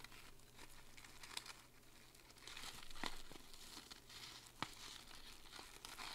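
Clear plastic jewelry bag crinkling and rustling as a chain necklace and an index card are slid inside, with a few sharp light clicks; the rustle is loudest about halfway through.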